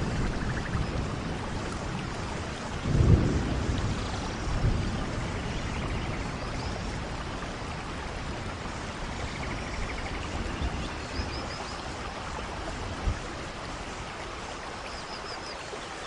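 Steady rain falling through forest, with low rumbles of distant thunder swelling in and out; the strongest is about three seconds in.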